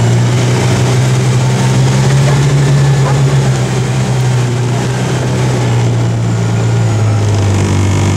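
Engine of a small open utility vehicle running steadily as it drives slowly. It is a low, even hum whose pitch rises a little about two to three seconds in, then eases back.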